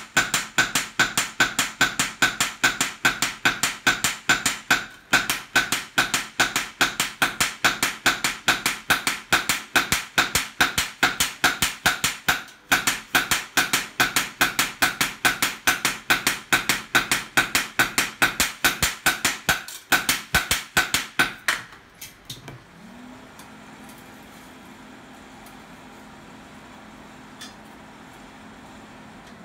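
Two hand hammers forging a red-hot gyuto knife blade on a steel post anvil in quick alternation, about four blows a second, each with a metallic ring. The hammering stops abruptly about 22 seconds in, leaving a steady low hum.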